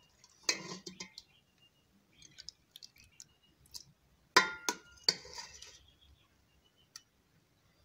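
A steel ladle clinking against an aluminium cooking pot and a serving bowl as curry is scooped out and poured. There are two clinks about half a second in, then three quick ringing clinks about four and a half seconds in.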